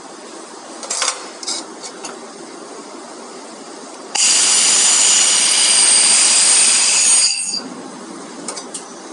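1000 W Raycus handheld wobble-head fiber laser welding 3 mm stainless steel: a loud steady hiss with a high whine that starts abruptly about four seconds in and stops after about three seconds. A few short clicks come before it, over a steady background hiss.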